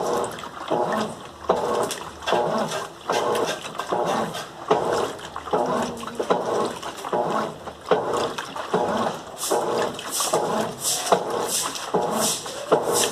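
Colormaq LCA11 top-loading washing machine agitating a load of towels and bedding in water: a rhythmic sloshing stroke about every two-thirds of a second, with sharper swishes in the last few seconds.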